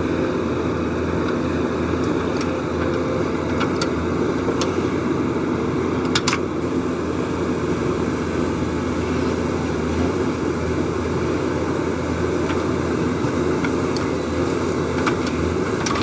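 JCB 3DX backhoe loader's diesel engine running steadily under load as the backhoe arm digs and lifts soil, with a few faint clicks.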